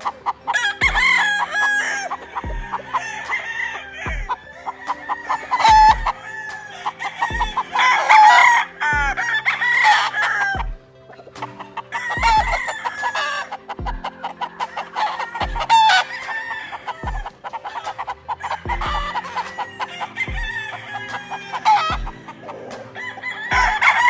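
Several Sweater Grey Kelso game roosters crowing and clucking, one call after another and loudest in the middle. Under them runs background music with a steady beat.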